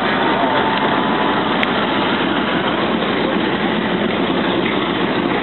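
Harvard Mk IIB's Pratt & Whitney R-1340 nine-cylinder radial engine idling steadily.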